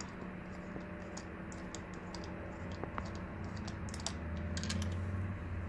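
Faint, irregular light metallic clicks from a spark plug socket and extension being worked in a spark plug well of a BMW N62 V8 cylinder head, with a low steady hum underneath.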